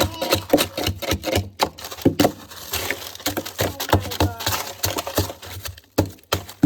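Frozen packages and chunks of ice knocking and cracking against each other as they are handled in a chest freezer: a run of sharp clunks and cracks, with voices in the background.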